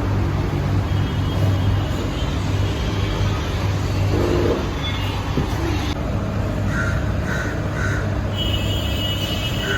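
A crow cawing three times in quick succession in the second half, over a steady low hum of street traffic.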